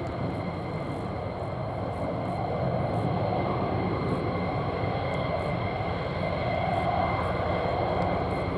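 Distant twin-engine F-15E Strike Eagle jet: a steady rumble of engine noise with a thin high whine over it, growing slightly louder about halfway through as the jet circles round on approach.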